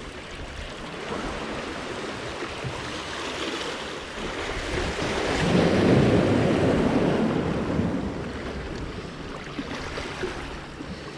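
Sea waves surging and washing over rocks, one larger surge swelling to a peak about halfway through and then draining away.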